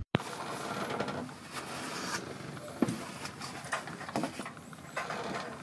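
Light clicks, taps and rustling of parts and tools being handled, with a few sharper knocks.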